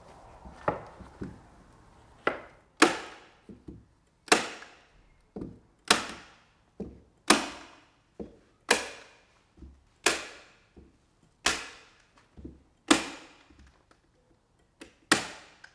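Hand staple gun firing staples through a plastic membrane into the timber window reveal: about ten sharp snaps, one roughly every one and a half seconds, with softer clicks between them.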